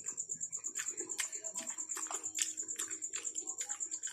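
Mouth sounds of someone eating soft jackfruit: a string of wet smacking clicks from chewing, about two a second, the loudest near the middle. Behind them a steady, rapidly pulsing high-pitched chirp.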